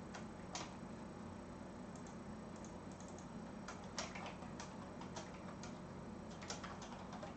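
Faint, irregular clicks of computer keys and a mouse as text is typed into a field, over a low steady background hum.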